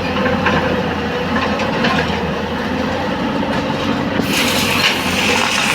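Heavy road-construction machinery running steadily with a low engine drone, joined by a hiss about four seconds in.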